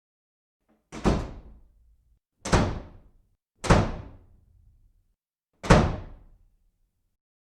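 Four loud, sharp bangs, spaced unevenly over a few seconds, each dying away within about a second.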